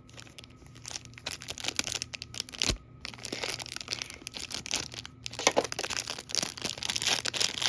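Toy packaging being handled: irregular crinkling and rustling, with one sharper knock about two and a half seconds in.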